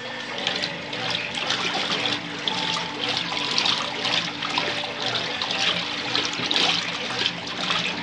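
Consul Facilite CWG11 top-loading washing machine agitating a high water level on its turbo setting: steady churning and sloshing of water around the agitator, with a faint steady low hum underneath.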